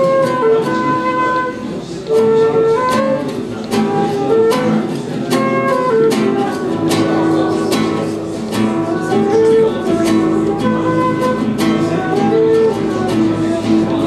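Live duet of a flute and an acoustic guitar: the flute plays a melody of held notes over plucked guitar accompaniment.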